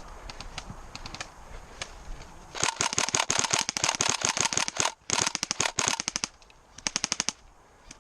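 Tokyo Marui SCAR-L airsoft electric gun firing on full auto in three rapid bursts: a long one about two and a half seconds in, a second right after a brief break, and a short one near the end. A few faint single clicks come before them.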